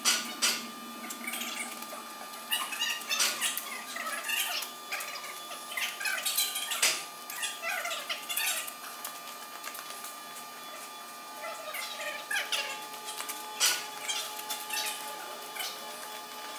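Scattered metal clanks and knocks with some squeaks as an EMD SW7 locomotive truck frame, hanging from crane slings, is worked down onto its springs and traction motor assembly. A faint steady hum runs underneath.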